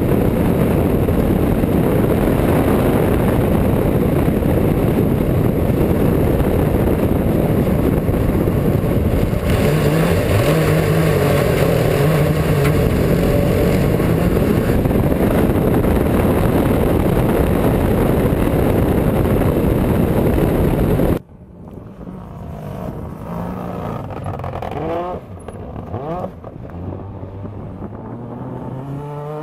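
MINI RX rallycross car driven hard on loose gravel and broken concrete. For the first two-thirds it is heard from a bonnet-mounted onboard camera: the engine revs up and down through gear changes under a dense, loud rush of noise. About 21 seconds in it cuts to the car heard from trackside, quieter, its engine revving up through the gears as it slides past.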